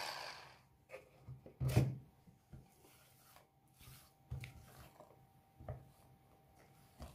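Silicone spatula scraping and folding thick chocolate buttercream in a plastic measuring jug: scattered soft scrapes and knocks against the jug wall, the loudest just before two seconds in.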